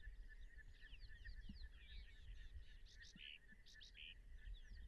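Faint outdoor background of many small birds chirping and twittering, over a steady, rapid pulsing trill.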